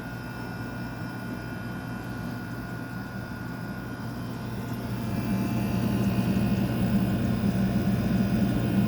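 2002 Whirlpool Gold 6500 BTU window air conditioner running, with its rotary compressor and fan. It makes a steady rush of air over a low hum and grows louder about five seconds in.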